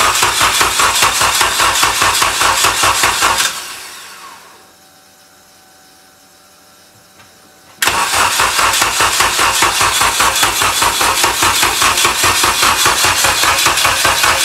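Honda K20 four-cylinder engine being cranked over by its starter with an even, rhythmic beat but not firing. It cranks for about three and a half seconds, winds down, then after a pause of about four seconds cranks again and keeps going: a failed start attempt.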